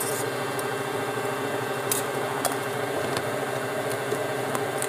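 Electric stand mixer motor running steadily, beating eggs for crème caramel. A few sharp clicks sound over it from about two seconds in, as a spoon knocks against the milk-powder tin.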